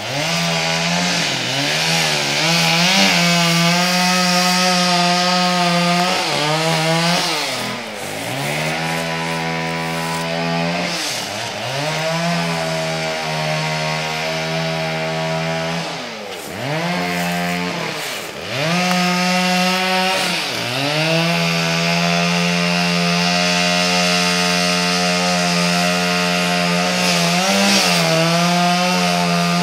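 Gas chainsaw running at high revs while cutting into a dead tree, its engine note dipping and climbing back several times as the chain bogs in the wood or the throttle is eased off and opened again.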